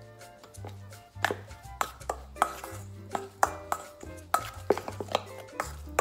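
Metal spoon clinking and scraping against a stainless steel mixing bowl while a thick spice paste is stirred: a quick run of clinks, about three a second, starting about a second in. Background music plays throughout.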